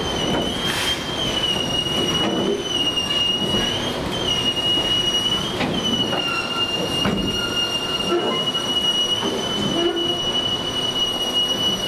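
Narrow-gauge passenger train's wheels squealing against the rails in one long, high squeal that wavers slightly in pitch, over the rumble and clatter of the moving cars.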